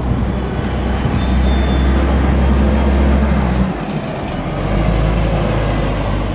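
Shuttle bus engine running as the bus drives past, a steady low drone. It drops away a little under four seconds in, then rises again.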